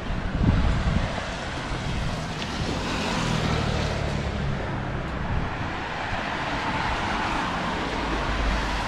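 Traffic on a busy road: many cars going by in a steady, noisy stream.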